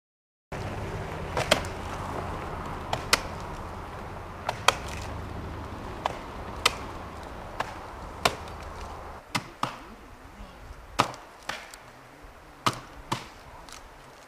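Repeated sharp chopping strikes on wood, about one every second or so and often in close pairs. A low steady rumble runs underneath and stops about nine seconds in.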